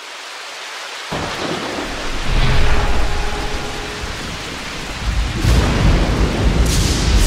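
Rain and thunder: a hiss of rain fading in over the first second, then a steady downpour with deep thunder rumbles swelling about two seconds in and again near the end.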